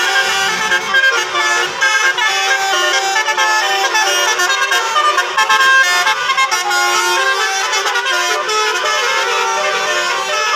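Bus's Basuri telolet multi-tone air horn playing a melody, a quick run of shifting notes without a break.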